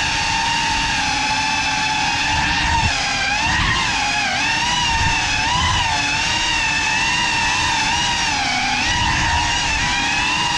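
GEPRC CineLog35 cinewhoop FPV drone's brushless motors and propellers whining, the pitch rising and falling constantly as the throttle is worked through quick turns, with a low rumble of prop wash underneath. It is heard close up from the camera on the drone.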